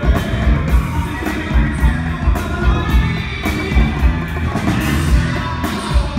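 A live rock/funk band playing, with a steady drum beat and bass under guitar and held instrument notes.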